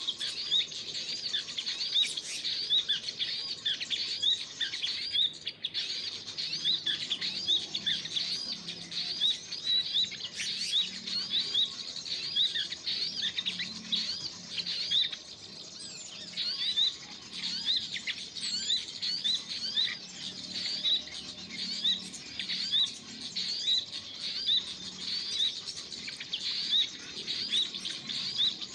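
Small birds chirping continuously, a fast stream of short, high, repeated notes with no let-up.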